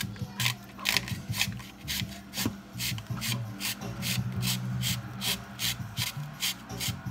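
Zucchini being twisted through a handheld Veggetti spiralizer, its blade rasping through the flesh in quick, even strokes, about four a second, as the noodles peel off.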